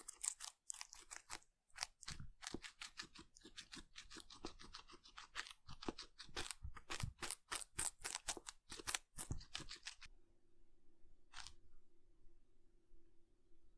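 Guinea pig biting and chewing crisp celery sticks close to the microphone: rapid, crisp crunching clicks. About ten seconds in the crunching stops, leaving a faint steady hum and a single crunch.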